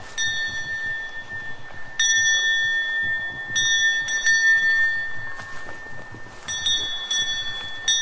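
Cowbell on a cow's neck clanking at irregular intervals as the animal moves, a fresh clang every one to three seconds, each ringing on with a steady high tone.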